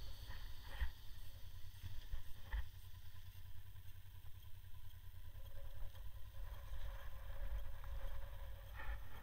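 Low wind buffeting and road rumble on the microphone of a camera mounted on a moving motorcycle, steady with uneven gusts.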